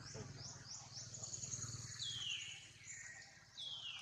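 Birds chirping: a quick run of short, high, rising chirps, then two longer calls sliding down in pitch, one about halfway through and one near the end, over a low steady hum.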